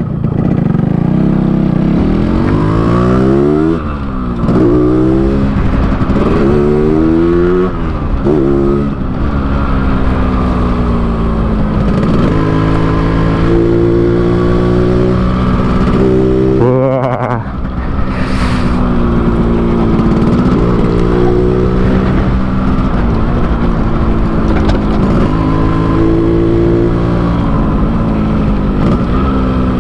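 Yamaha RX-King two-stroke single-cylinder motorcycle, tuned in the Medan 'ngorok' (snoring) style, pulling away under throttle. In the first ten seconds the engine note rises and drops back four or five times as it goes through the gears, dips briefly about seventeen seconds in, then settles into a steady cruise with small rises and falls.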